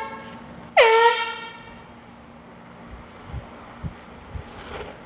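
Handheld canned air horn blasting once, about a second in: a short, loud blast that swoops down into a steady tone, then trails off. A few soft low thumps follow near the end.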